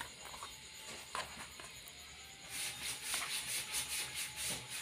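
A few light taps of papaya pieces being handled on a plastic plate, then from about halfway rapid crinkling of thin plastic wrapped on the hand as it moves the slices.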